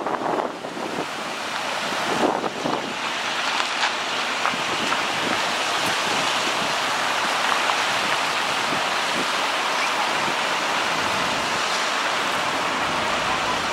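Swollen, fast-flowing floodwater in a creek rushing steadily, with wind blowing. The first couple of seconds are a little uneven before the rush settles into a constant sound.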